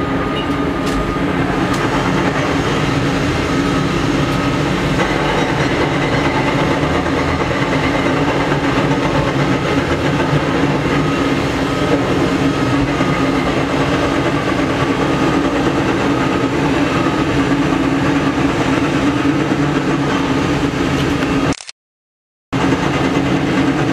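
Caterpillar 330D L excavator's C9 diesel engine running steadily under work. The sound breaks off for about a second near the end.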